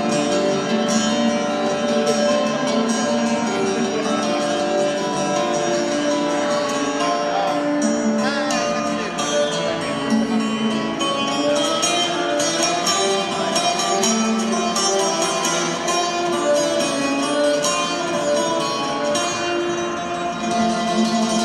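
Belly dance music playing continuously for a group routine, a melody carried over a steady rhythm.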